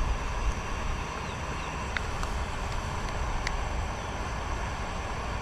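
A spoon clinks lightly against a stainless steel camping mug, about two seconds in and again about three and a half seconds in, while coffee is spooned in. Under it runs a steady rushing noise with a low rumble.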